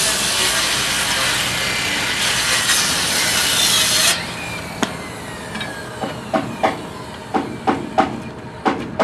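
Handheld circular saw cutting off the end of a wooden roof purlin, running steadily for about four seconds and stopping abruptly. A series of sharp knocks follows, a few a second.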